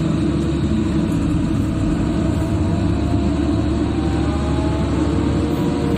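Halla 130 wheel excavator's diesel engine running steadily, heard from inside the cab, with a faint wavering whine in the second half as the boom and bucket work soil.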